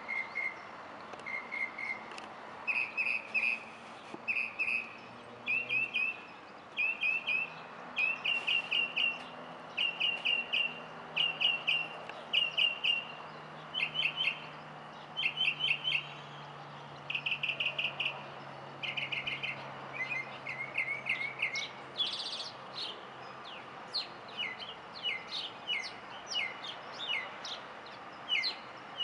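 Songbirds chirping in short clusters of two to four quick notes, repeated every second or so over faint background hiss. About two-thirds of the way through, a higher, brighter call rings out, followed by a run of quick falling notes.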